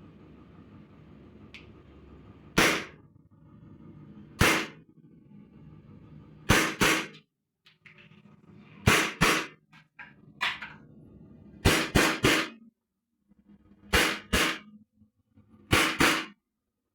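Airsoft gun shots: about fourteen sharp reports fired singly and in quick pairs and one triple, a burst roughly every two seconds.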